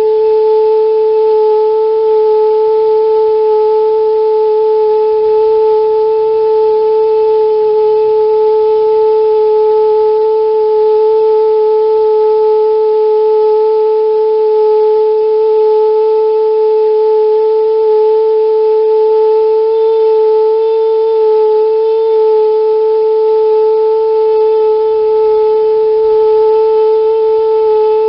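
Toyotomi laser-burner kerosene fan heater giving a loud, steady hooting whistle, one held tone with overtones that wavers slightly. It is an abnormal combustion resonance that the owner puts down mainly to a clogged filter starving the burner of combustion air, with the ring-shaped blue flame vibrating.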